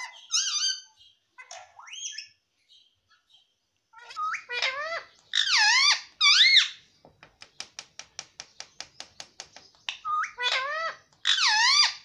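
Indian ringneck parakeet calling: loud, squeaky screeches in short bursts that glide up and down in pitch. In the middle comes a fast run of sharp clicks, about seven a second, lasting a few seconds, before the screeches resume.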